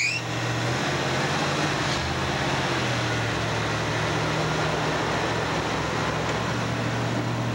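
Ford F-250 pickup's engine running steadily at low speed, a low even hum, as the truck creeps down off a weigh-scale platform.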